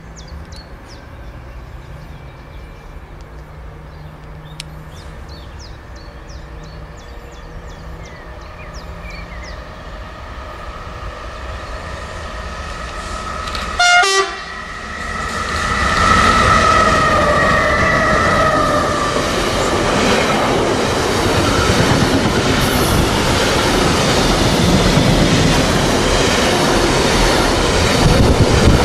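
Two HLE 13 electric locomotives hauling an intermodal container train approach and pass. The rumble grows steadily, a short horn blast sounds about halfway in, and then the wagons clatter past loudly.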